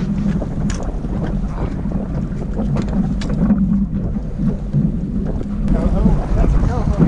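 Boat outboard motor running steadily at low trolling speed, with wind buffeting the microphone.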